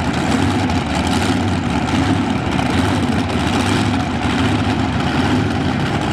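Multi-engine modified pulling tractor's engines running at a steady fast idle, with no revving. The commentator thinks the engines were spinning too fast for the tractor to go into gear.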